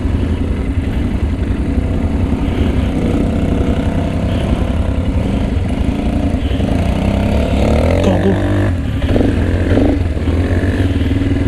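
ATV engine running steadily as the quad rides down a dirt downhill trail, its note shifting up and down briefly about eight to ten seconds in.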